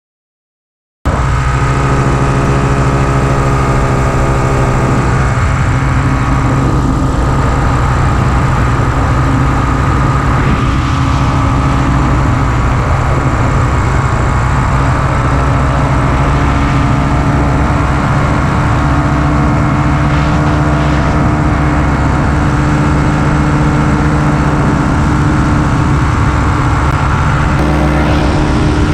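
Paramotor trike's engine and caged propeller running steadily in flight, a loud, even drone that cuts in about a second in.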